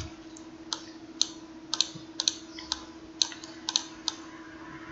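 About a dozen sharp, irregularly spaced clicks of a computer keyboard and mouse, some in quick pairs, over a faint steady hum.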